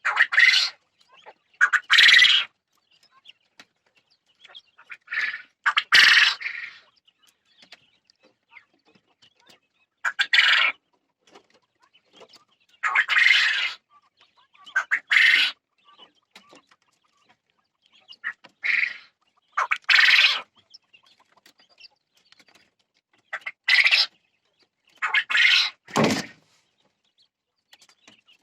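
Jumbo quail (a large Japanese quail strain) calling: short, loud, high-pitched calls, about a dozen, coming every second or few with quiet gaps between.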